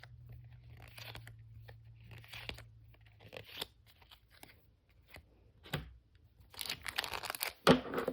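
Foil booster-pack wrapper being torn open and crinkled by hand, in scattered short rustles, with a louder burst of tearing and crackling near the end.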